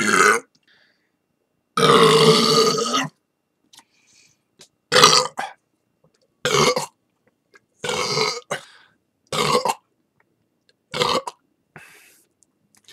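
A string of loud burps, about six, one after another with short silent gaps between them. The second is the longest, lasting over a second; the rest are short.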